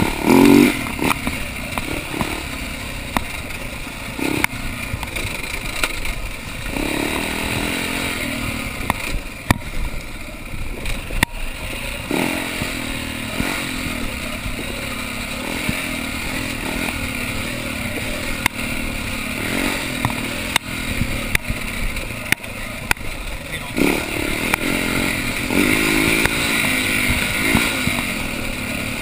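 Husaberg dirt bike engine running under changing throttle, revving up and easing off repeatedly as it rides a rough dirt trail. Frequent sharp knocks and rattles come from the bike jolting over the ground.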